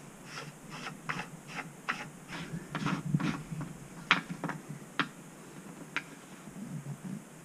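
Irregular light clicks and taps of fingers twisting and working the plastic fill cap on a Road Shower 4L roof-mounted solar shower tank. The clicks come thick for about five seconds, then thin out to a few single ones.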